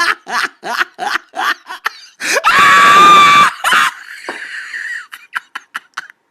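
Hysterical laughter: rapid short bursts of laughing, about three a second, breaking into a long, loud, shrill squeal of laughter about two and a half seconds in, then trailing off into faint wheezing gasps.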